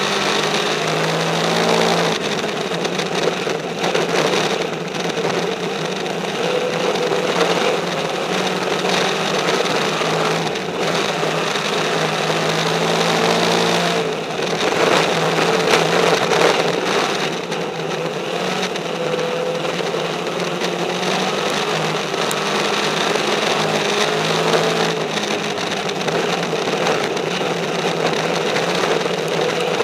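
Dirt-track race car engine running hard, heard from an onboard camera inside the cockpit, its pitch wavering up and down as the throttle comes off and goes back on through the corners. A rough, buzzing drone with dirt and wind noise mixed in.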